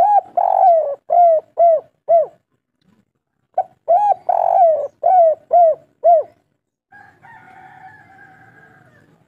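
Spotted dove singing its 'kuk 3' song twice, about three and a half seconds apart. Each phrase is a quick opening note, a long rolling coo, then three shorter coos. About two seconds before the end comes a fainter, drawn-out call that drops slightly in pitch.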